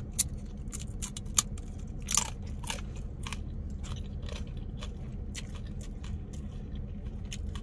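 Close-up crunching and chewing of a fried tortilla chip: a rapid run of sharp, crisp crackles, loudest in the first second and a half, thinning into softer chewing.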